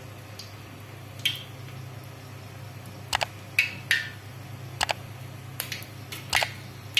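Bay leaves frying in hot oil in a metal karahi, the oil crackling with about a dozen scattered sharp pops and spits over a steady low hum.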